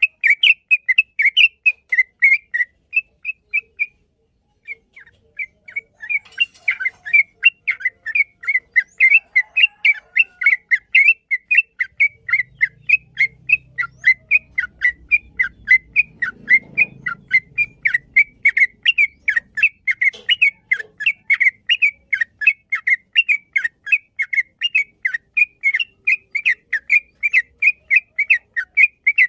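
Yellow-vented bulbul (trucukan) singing a long rapid rolling phrase: short whistled notes, about four a second, with a brief break about three seconds in.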